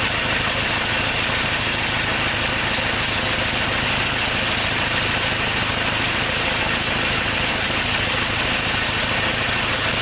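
Ford Ranger diesel engine idling, steady and really loud. It is misfiring on cylinders one and two, which the mechanic puts down to injectors needing service.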